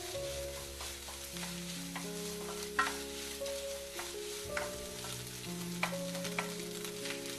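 Fried rice sizzling in a nonstick wok as a spatula stirs and scrapes through it, with a few sharp clicks of the spatula against the pan, the loudest about three seconds in. Slow background music plays underneath.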